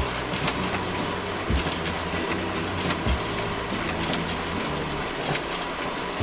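OKI C941dn production printer running at full speed, 50 sheets a minute: a steady mechanical whir and hum with quick paper swishes as sheets feed out into the output tray, and a few low thumps.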